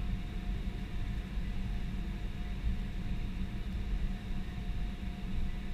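Airbus A320 cabin noise while taxiing at low engine power: a steady low rumble with a faint steady whine.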